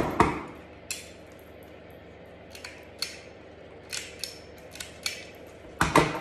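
Hand stapler clacking shut through paper strips and wool yarn: a loud clack at the start and another near the end, with lighter single clicks between.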